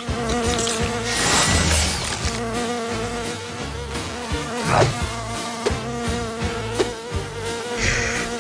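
Cartoon housefly buzzing steadily, with a few short sound effects over it.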